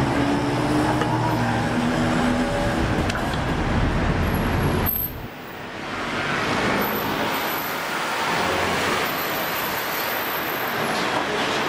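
Road traffic passing close by: a vehicle engine runs with a low, steady hum for about five seconds, then the sound dips suddenly and gives way to an even wash of passing traffic.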